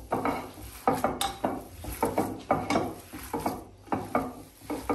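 Hands mixing and kneading a moist filling of shredded vegetables and fish in a ceramic dish. The strokes are short and uneven, about three a second, with the hands rubbing and knocking against the dish.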